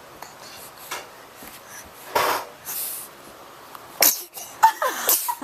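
A baby sneezing: a breathy sneeze about two seconds in and a sharper one about four seconds in.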